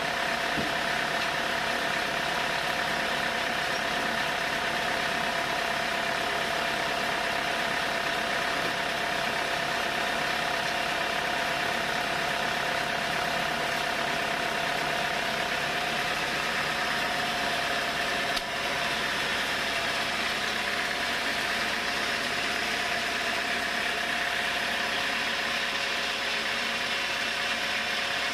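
Sawmill machinery running steadily at a constant pitch, engine and saw droning together. A brief click and a small dip in level come about two-thirds of the way through.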